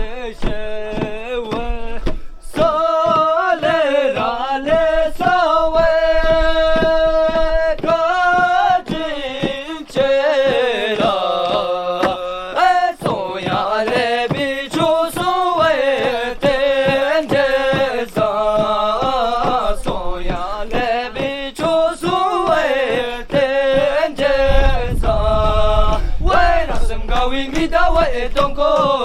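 Melodic chanting with long, wavering held notes over a steady rhythmic beat.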